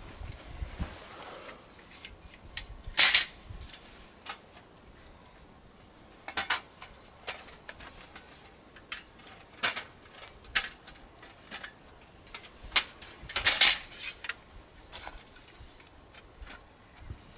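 Irregular metal clinks and clatter of camp cookware or stove parts being handled, with a few louder knocks among lighter taps.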